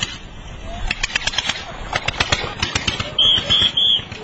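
A small farm tractor's engine chugging in rapid, even knocks. Near the end come three short shrill whistle blasts from a traffic policeman's whistle, signalling the tractor to stop.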